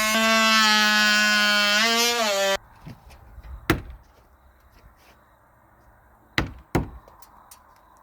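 A steady pitched drone that dips slightly in pitch near two seconds, then cuts off abruptly about two and a half seconds in. Three sharp knocks follow, the last two close together.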